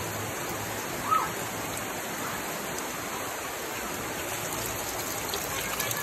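Steady rush and splash of spring water running from a bamboo spout onto rocks, with one brief, sharp sound about a second in.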